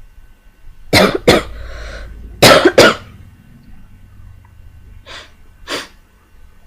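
A sick person coughing. There are two loud pairs of sharp coughs in the first three seconds with a breath drawn between them, then two fainter single coughs near the end.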